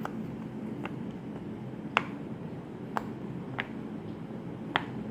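Silicone pop-it fidget toy bubbles being pressed through one at a time, giving short sharp pops about once a second, five in all. The loudest comes about two seconds in.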